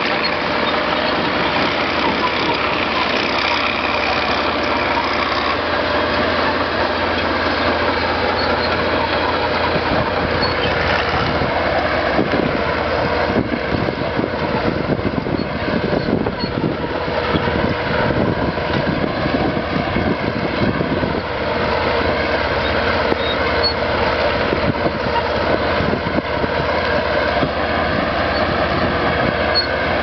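Vintage crawler tractor's diesel engine running steadily under load as it pulls a multi-furrow plough through the soil, with a continuous clatter of tracks and plough over it.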